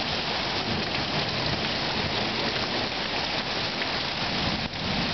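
Steady downpour of rain hissing on surfaces in a thunderstorm, with a low rumble of thunder under it.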